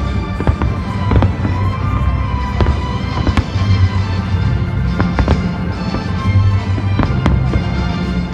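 Fireworks bursting in repeated sharp bangs, a second or two apart, over loud orchestral-style music played with the display.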